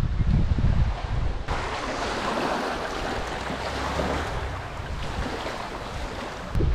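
Wind buffeting the microphone. About a second and a half in, it switches suddenly to small waves washing over shoreline rocks close by, a steady wash of water. The wind noise returns near the end.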